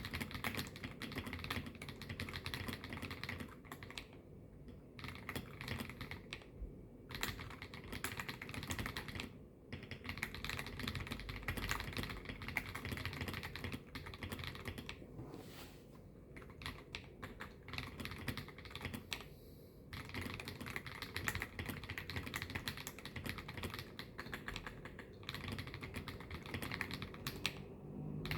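MYNK65 mechanical keyboard with lubed Akko Snow Blue Grey linear switches being typed on in fast, continuous runs of key clicks, with a few short pauses, heard through a phone's microphone.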